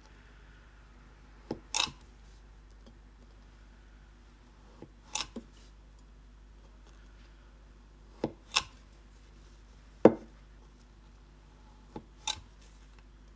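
Chef's knife cutting through a chilled, granulated-sugar-coated log of sablé cookie dough and meeting a wooden cutting board, five cuts about every two to three seconds. Each cut is a short crisp crunch, mostly heard as a quick pair of clicks, with the sharpest one about ten seconds in.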